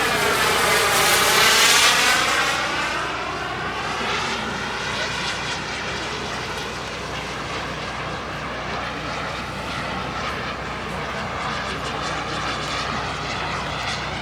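Radio-controlled model jet's turbine engine during a fly-by: the sound sweeps through a close pass, loudest about two seconds in, then drops to a steadier drone as the jet flies on.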